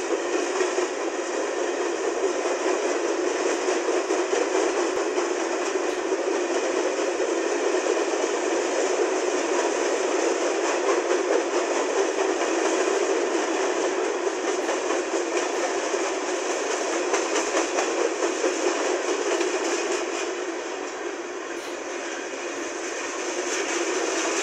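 Freight cars rolling past on the rails, a steady rumble and rattle of wheels with a quick clatter, easing briefly about three-quarters of the way through before picking up again. The sound is thin, with no deep bass, as if heard through a small speaker.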